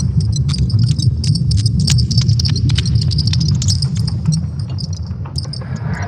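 Sonified Earth magnetic-field signals from ESA's Swarm satellites, converted to sound: a deep, steady rumble under dense crackling clicks and a high, pulsing tone.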